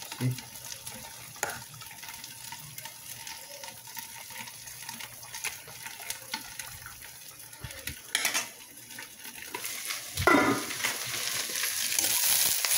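Pork simmering in sauce in a steel pan, sizzling softly while a utensil stirs and scrapes against the metal with scattered clicks. A louder knock comes about ten seconds in, then a louder sizzle builds as shredded vegetables fry in hot oil.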